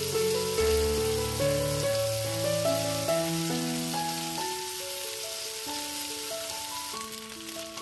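Pork belly sizzling as it fries in a pan, with background music of stepped melodic notes over it. The music's lower part drops away about halfway through.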